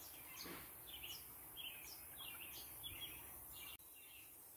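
Faint bird chirping: a quick series of short high chirps over low background noise, stopping a little before the end.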